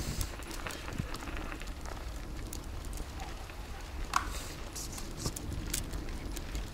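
Bicycle being ridden over a snowy forest path, heard from the basket: a steady low rumble with scattered clicks and crackles from the wire basket and its cover, one sharper click about four seconds in.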